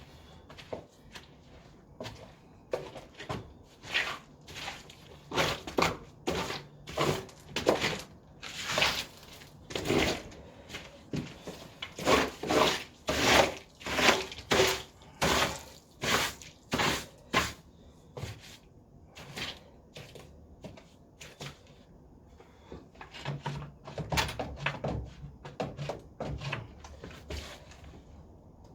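A long run of knocks and scrapes, one or two a second, as hand tools work at a drain gully clogged with gunk; the strokes are loudest in the middle and come in a second, quieter cluster near the end.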